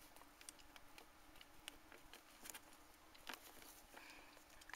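Near silence: a few faint, scattered clicks and taps of hard plastic toy figurines being handled by fingers, over a low steady hum.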